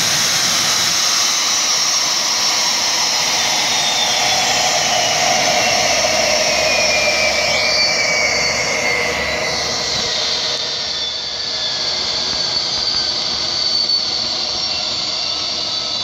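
Cessna Citation Bravo's twin turbofan engines whining loudly over a steady rush, the whine falling steadily in pitch through the first half.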